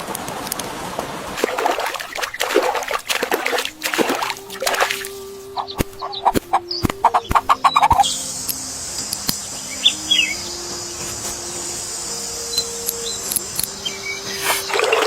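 Soft background music of held, stepping notes, with a few bird chirps. In the first few seconds there is a noisy rustle, and a quick run of knocks and clatter follows before a steady high hiss sets in about halfway.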